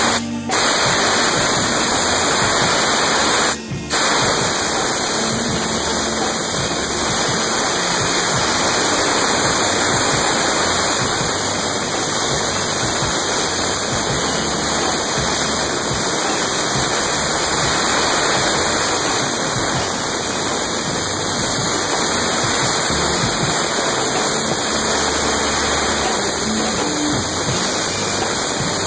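Compressed-air blow gun blowing water off a wet-sanded clear-coated panel: a steady loud rush of air, cut briefly twice in the first few seconds.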